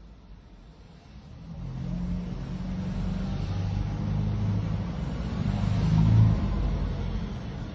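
A motor vehicle's engine running close by. It grows louder from about a second and a half in and is loudest about six seconds in.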